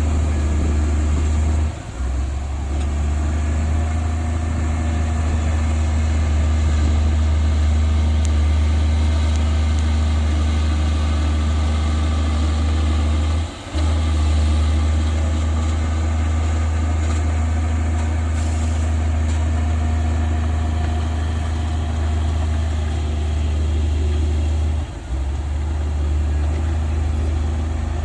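Heavy diesel engine of earthmoving machinery running steadily with a deep, low hum. The sound drops out for an instant three times.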